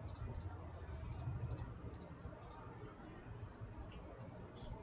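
Computer mouse clicking: about eight short clicks, some in quick pairs, spread unevenly, over a low steady hum.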